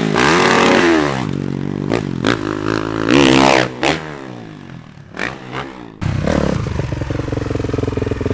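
Motocross bike engine revving, its pitch rising and falling several times during jumps. About six seconds in it switches abruptly to a steady, closer engine note.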